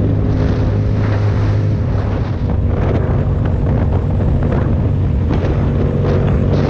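Motorcycle engine running at a steady cruising speed, with heavy wind rush buffeting the microphone.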